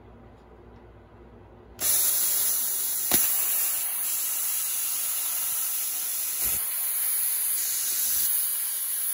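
Handheld plasma cutter cutting a circle in sheet steel. After a faint low hum, the arc catches about two seconds in and the cut runs as a loud, steady hiss, with one sharp click shortly after it starts.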